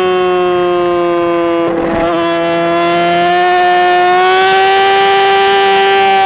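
Motorcycle engine held at high revs under power, a steady high-pitched note whose pitch climbs gently a few seconds in as speed builds, with a brief dip about two seconds in.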